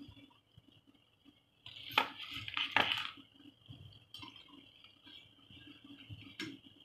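A utensil clinking and scraping against a plate as fried bondas are tipped onto it, in a burst of about a second roughly two seconds in, with one more sharp clink near the end. A faint steady high-pitched whine runs underneath.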